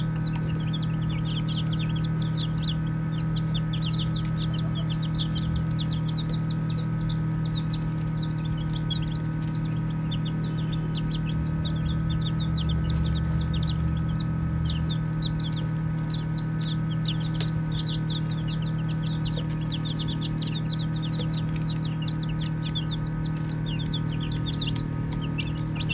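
A brood of baby chicks peeping: a dense, continuous stream of short, high chirps overlapping one another, over a steady low hum.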